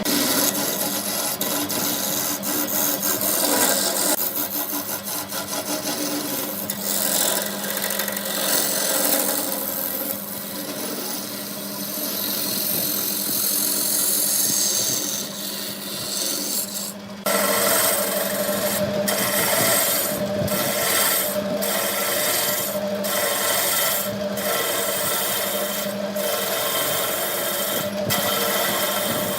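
Wood lathe running with a steady motor hum while a tool scrapes and cuts the spinning wood. The sound changes abruptly about halfway through, then breaks off briefly every second or two.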